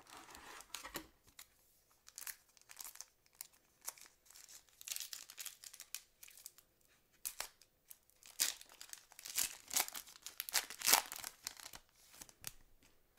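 A foil-wrapped 2006 Fleer Ultra trading card pack being torn open by hand, the foil wrapper crinkling and ripping in irregular bursts that are loudest near the end.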